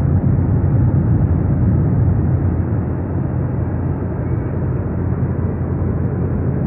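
Steady low rumble inside a jet airliner's cabin in cruise: engine and airflow noise.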